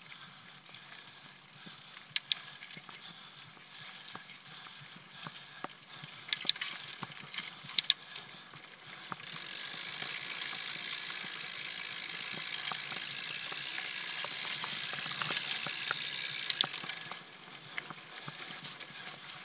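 Mountain bike being ridden, with rattles and sharp clicks from the bike. For about eight seconds in the middle a steady, louder high buzz sets in and then stops suddenly, typical of the rear hub's freewheel ratchet while coasting.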